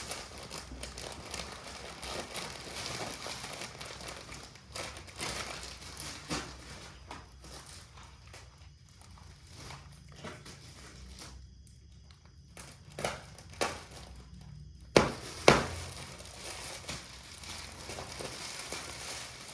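Plastic packaging crinkling and rustling as items are handled, with scattered small clicks and two sharp knocks close together about fifteen seconds in.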